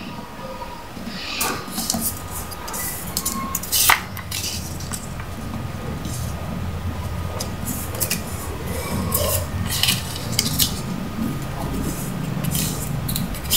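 A paper banknote being folded and creased by hand: crisp crackling and rustling of the stiff paper, with sharp snaps now and then, the sharpest about four seconds in.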